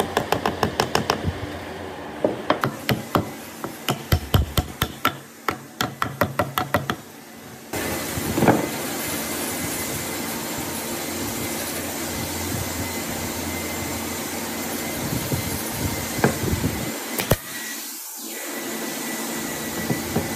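Quick, light hammer taps on wood, about five a second in short runs, as thin wooden slats are driven down into saw kerfs in a wooden stool seat. About seven seconds in they stop, and a steady background hiss follows with a single louder knock soon after.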